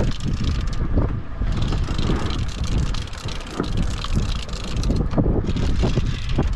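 Wind buffeting the microphone over the steady running of a boat's engine, as an uneven low rumble with a rushing hiss.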